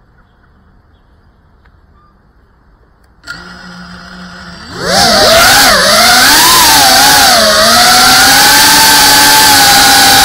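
FPV quadcopter's brushless motors and propellers: they start about a third of the way in with a steady low hum, then about half way in spin up into a loud, high whine for takeoff, the pitch wavering up and down as the throttle changes in flight.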